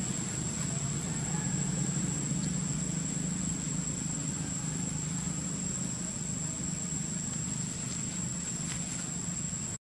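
Steady outdoor background: a low rumble under a constant, thin high-pitched insect drone. The sound cuts out abruptly just before the end.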